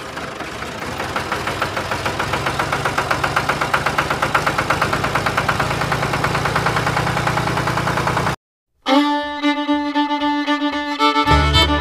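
Tractor engine running with a fast, even pulse of about five or six beats a second, growing slowly louder. After about eight seconds it cuts off and fiddle music starts.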